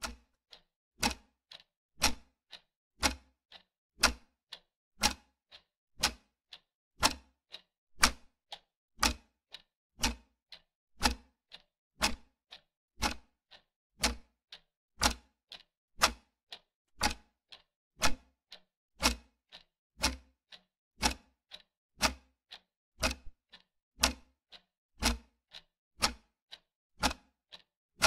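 Clock-ticking sound effect for a quiz countdown timer: a steady tick-tock, with a louder tick every second and a softer one halfway between.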